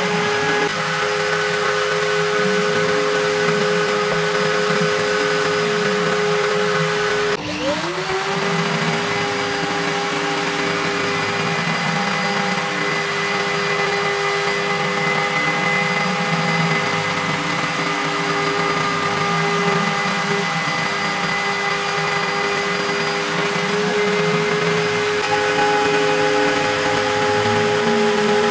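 Homemade CNC router's high-speed spindle driving an end mill through an aluminium plate, a steady whine with the grinding chatter of the cut, over the hiss of the minimum-quantity-lubrication air nozzle. About seven seconds in the level briefly dips and the whine settles back in.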